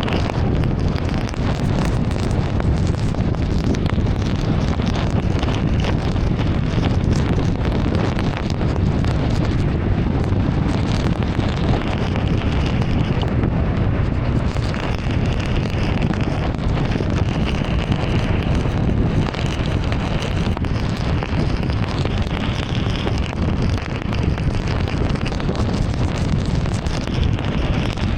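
Steady, dense noise of a car driving through heavy rain: rain hitting the car and tyres spraying on a waterlogged road.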